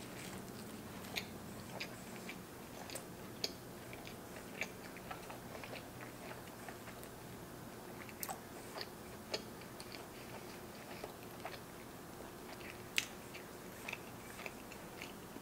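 A person chewing a mouthful of burger with hash browns in it, close to the microphone: soft mouth noise with irregular sharp wet clicks, the loudest one near the end.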